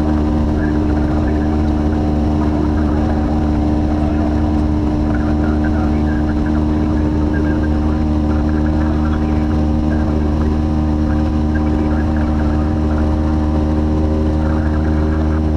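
Light aircraft's piston engine and propeller running at a steady cruise setting, an even drone that holds one pitch throughout.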